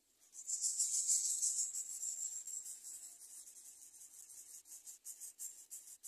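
Greater coucal nestlings begging with a dry, high-pitched raspy hiss of rapid pulses. It starts suddenly under a second in, is loudest for about two seconds, then goes on weaker and in broken bursts.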